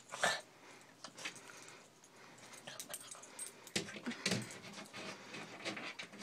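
Small dog chasing a laser-pointer dot up a wall: scattered short snaps and scuffs from its jaws and paws, the loudest just after the start and a cluster about four seconds in.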